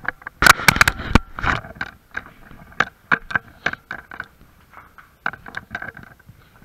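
Footsteps crunching and scuffing over rubble and broken debris on a derelict building's floor, with a loud clatter of sharp knocks about half a second in, then irregular crunches two or three times a second.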